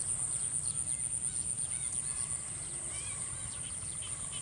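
Outdoor ambience of small birds chirping in many short, scattered calls over a steady high-pitched insect trill, with a low rumble beneath.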